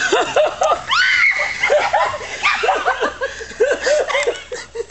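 A woman laughing hard, a long run of short high-pitched rising-and-falling peals.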